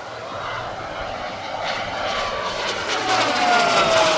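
Turboprop turbine and propeller of an RC scale Pilatus PC-21 model flying by, growing steadily louder as it approaches. Near the end, as it passes close overhead, its whine drops in pitch.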